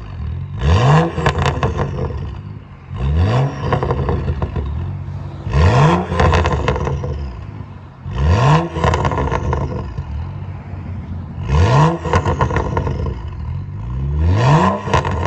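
BMW F10's engine, on an MHD stage 0 burble tune, blipped six times while stationary, each short rev rising in pitch and followed on the overrun by a run of crackling exhaust pops.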